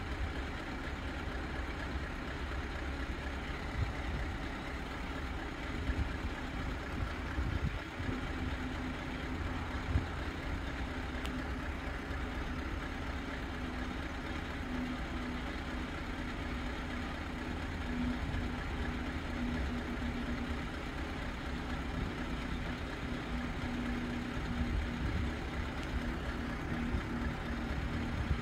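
Road vehicle engines idling, a steady low rumble, joined about eight seconds in by a low steady hum.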